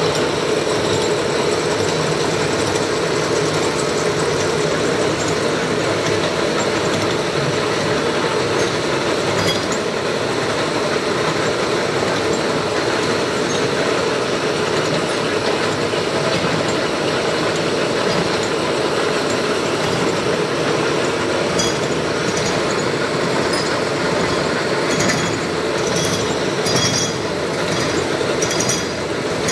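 Old horizontal thread-cutting machine running steadily, its motor and spindle turning as the tool cuts a thread in a vise-held part under coolant. A few short high ticks come in near the end.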